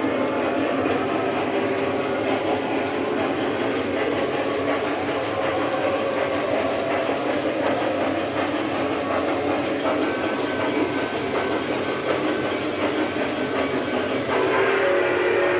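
O-gauge model trains running on layout track: a steady rolling rumble of wheels on rail with the locomotives' motors and sound systems. About fourteen seconds in, a new steady tone comes in over it.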